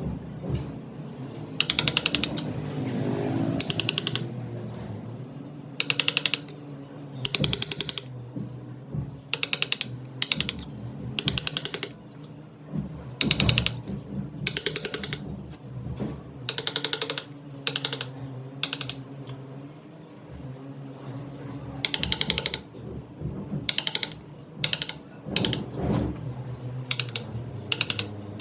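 Wood lathe running steadily, with short bursts of rapid clattering every second or two as the turning tool bites into the spinning redwood.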